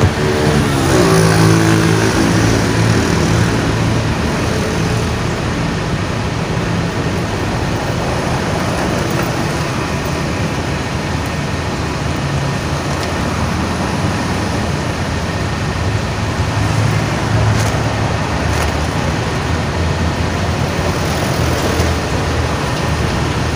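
Road traffic and running vehicle engines, a steady low hum under a haze of traffic noise, with an engine's pitch shifting about a second in.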